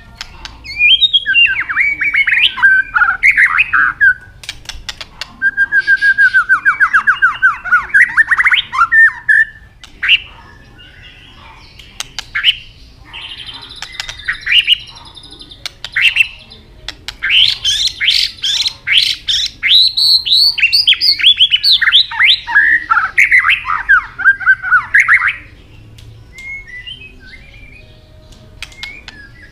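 White-rumped shama singing: long phrases of rapid, sweeping whistled notes, with pauses of a second or two between them and a few sharp clicks in the gaps.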